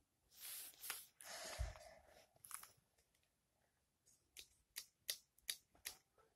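Near silence with faint rustling and a soft thump, then a quick run of small clicks: handling noise from the phone doing the filming as it is moved.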